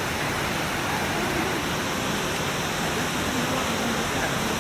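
Steady, even rushing of a waterfall: falling water pouring without a break.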